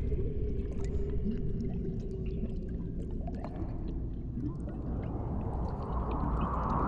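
Eerie horror-film sound-design drone: a low rumble under a held tone, with a few short rising chirps and scattered clicks, and a rushing swell building over the last two seconds.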